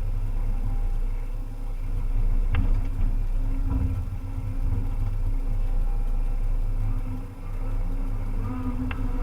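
Volvo EC300EL excavator's diesel engine running steadily, with a faint hydraulic whine rising and falling over it. A sharp click comes about two and a half seconds in and another near the end.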